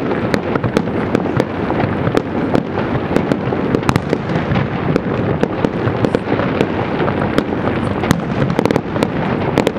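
Aerial fireworks bursting in a dense run: a continuous rumble of shell bursts with many sharp cracks throughout.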